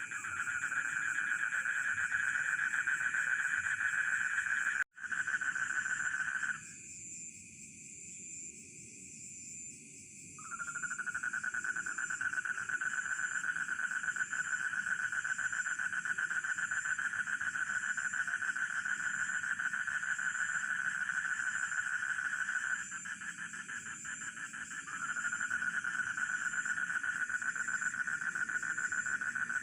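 Rice-field chorus of frogs and crickets: a dense, fast-pulsing frog chorus that stops for a few seconds twice and starts up again, over a steady high insect trill with a regular beat about once a second. The whole sound cuts out for an instant about five seconds in.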